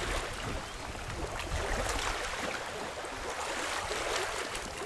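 Wind buffeting the microphone in a fluctuating low rumble, over the steady wash of river water lapping at the shore.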